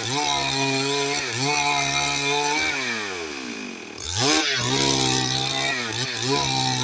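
Stihl MS 382 two-stroke chainsaw running at high revs, its pitch dipping briefly now and then under load. About three seconds in the engine speed slides down, then it revs back up sharply just after four seconds with a short burst of noise.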